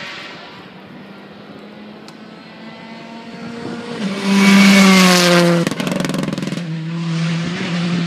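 WRC2 rally car's engine at full throttle on a gravel stage. It grows louder as the car approaches, passes close by about four seconds in with its pitch falling, and cuts off abruptly just before six seconds. A steadier engine note follows.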